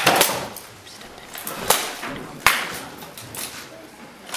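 Rattan weapons striking armour and each other in armoured combat: sharp cracks, two in quick succession at the start, then single blows about one and a half and two and a half seconds in.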